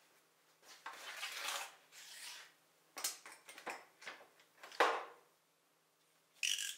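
Hands working blue painter's tape and a steel putty knife along the edge of a table leaf, prying up loose veneer so glue can be got under it: rustling and scraping, several sharp clicks with the loudest about five seconds in, and a brief hiss near the end.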